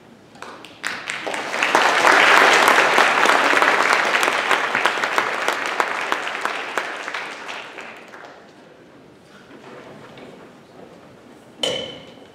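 Audience applauding: the clapping swells within the first couple of seconds, holds, then thins out and fades. Near the end there is one brief pitched sound.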